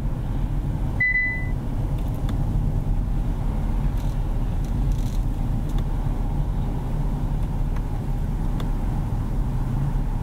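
Inside the cabin of a 2021 Kia Carnival minivan on the move at low speed: a steady low engine and road rumble. A short, high beep sounds once about a second in.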